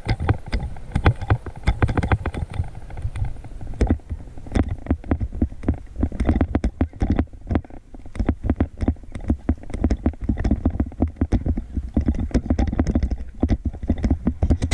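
Rapid irregular knocking and rattling over a low rumble as a bike rolls over a bumpy grass-and-dirt track, the jolts shaking the rider-mounted action camera.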